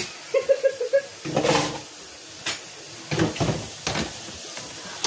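Dishes being washed by hand at a kitchen sink: a quick run of short squeaky pulses, a brief rush of water about a second in, then several clinks and knocks of dishes and utensils.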